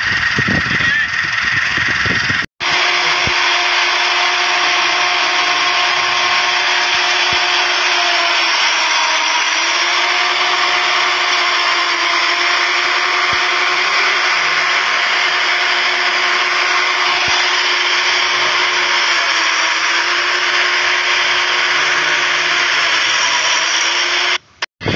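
Steady whirring drone of a machine motor, with a faint hum that wavers slightly in pitch; it starts after a short cut-out about two and a half seconds in and stops with another cut-out near the end.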